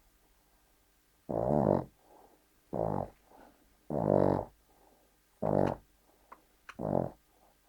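A Cavalier King Charles spaniel snoring in its sleep: five snores, each with a clear pitch, coming about every one and a half seconds, with quiet between them.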